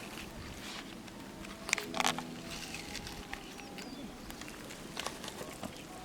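Outdoor background of small birds chirping, with scattered light clicks and a short, louder burst of sound about two seconds in.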